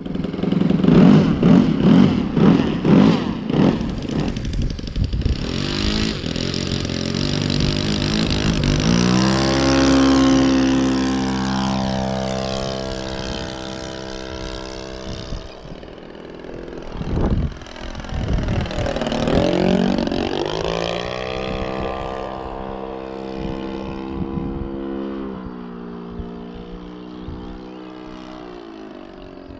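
Saito FG-21 single-cylinder four-stroke petrol engine running without a muffler on a radio-controlled Piper Cub model. It is loud and pulsing close up at first, then settles into a steady drone as the plane flies. About two-thirds of the way through its pitch falls and rises again, and it fades toward the end.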